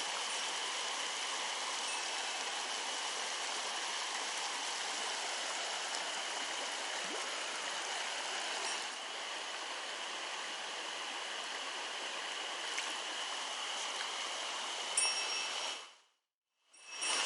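A mountain stream's water rushing steadily, with a thin, steady high tone running above it. The sound drops out completely for about a second near the end.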